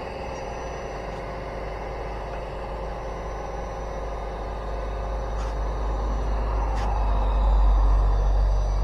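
Steady whine of a camera drone's electric motors and propellers, several tones held together, with a low wind rumble on the microphone that swells louder about seven seconds in.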